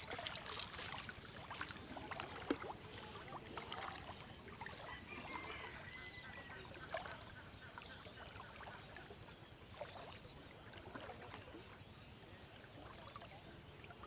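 Water sloshing and dripping around a person wading slowly with a cast net, with a brief loud hiss about half a second in. Faint bird calls sound now and then in the background.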